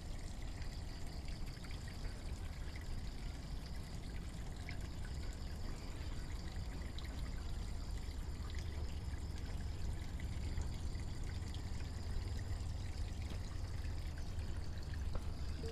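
Steady trickle of running water, with a low rumble beneath it.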